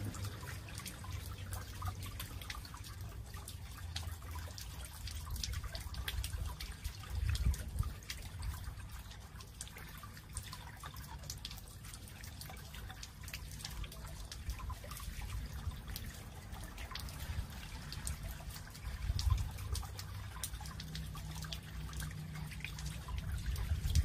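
Water trickling and dripping over the boulders of a stone garden fountain into its shallow pool, with many small splashes. A low rumble runs underneath and swells briefly twice.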